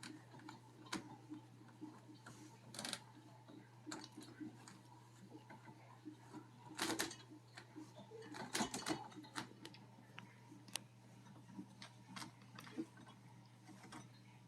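Scattered light clicks and knocks of a borescope camera cable being handled and pushed into a corrugated dishwasher drain hose, with a few quick clusters, over a steady low hum.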